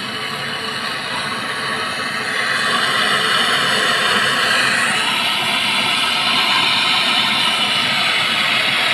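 Gas brazing torch flame hissing steadily during brazing of a window-type air conditioner's pipework, growing louder about two and a half seconds in.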